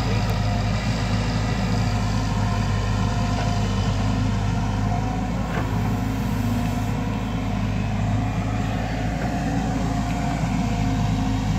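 JCB tracked excavator's diesel engine running steadily as the arm digs into and lifts wet mud.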